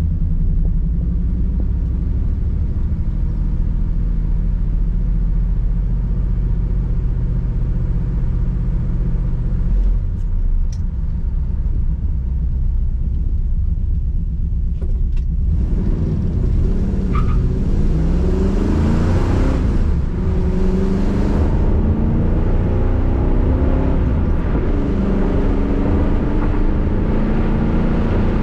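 Ford 351 Windsor V8 with a Race Demon four-barrel carburetor, heard from inside the cabin. It runs at a steady speed at first, then is pulled hard through the gears at about three-quarter throttle in the second half, the revs climbing and dropping back at each shift.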